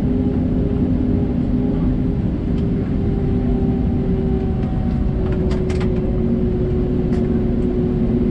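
Cabin noise inside an Airbus A320neo airliner: a steady roar of engines and airflow with several humming engine tones, which shift slightly in pitch about halfway through. A few faint clicks are heard in the middle.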